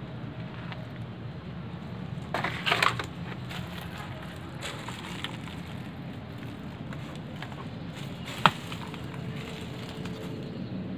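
A short crunch of dry leaves and debris underfoot about two and a half seconds in, then one sharp click near the end, over a steady low rumble.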